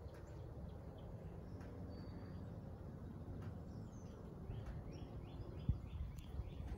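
Baby chicks peeping softly, a run of short falling peeps about three a second in the latter part, over a steady low background rumble. A single thump just before the end is the loudest sound.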